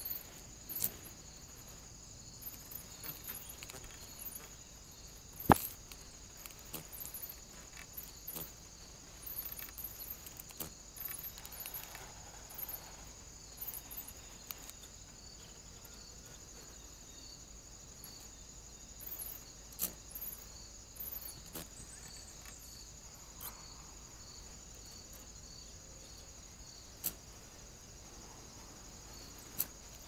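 Woodland ambience at a bird feeder, heard through a trail camera's microphone: frequent faint high-pitched bird chirps over a steady high hiss, broken by a few sharp clicks, the loudest about five and a half seconds in and others near twenty, twenty-seven and thirty seconds.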